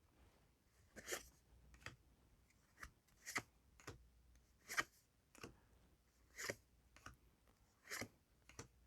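Trading cards being slid off a stack one at a time: about a dozen faint, brief swishes and taps over near silence.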